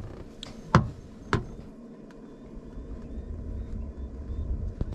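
Two sharp reports from a rifle aimed out of a vehicle's window, about a second in and half a second apart, then the vehicle's engine running with a low rumble that grows a little louder.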